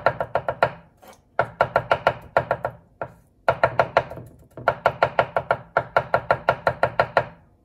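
Kitchen knife mincing garlic on a round wooden cutting board: rapid, even chopping strokes, about six or seven a second, in four runs broken by short pauses.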